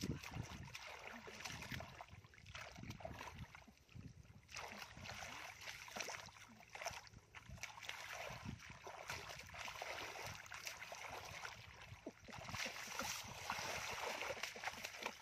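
Hands groping and stirring through shallow muddy water, making irregular small splashes, sloshes and wet squelches.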